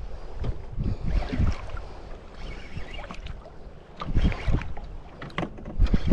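Water slapping against the hull of a small fishing boat at sea, giving irregular low thumps, with wind on the microphone.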